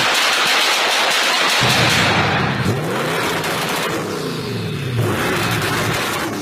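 Vehicle exhaust revving, its pitch sweeping up and down several times with light crackling, after a loud rushing hiss in the first second and a half.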